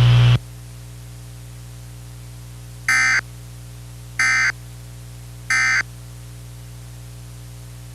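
A loud low hum cuts off just after the start, leaving a steady radio hum. Then come three short, identical digital data bursts about 1.3 seconds apart: the EAS/SAME End of Message (NNNN) signal that closes a NOAA Weather Radio alert.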